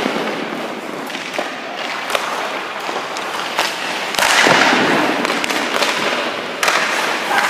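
Hockey skates scraping and hissing on the ice, loudest in a scrape of about a second a little past halfway, with several sharp clacks of sticks and pucks.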